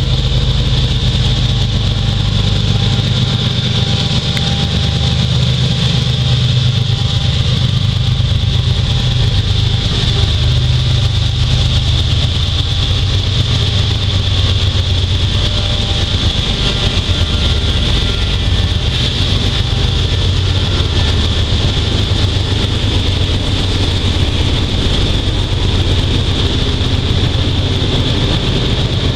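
Norfolk Southern freight train passing close by, its diesel locomotives running with a steady low rumble and a constant high-pitched hiss or whine above it.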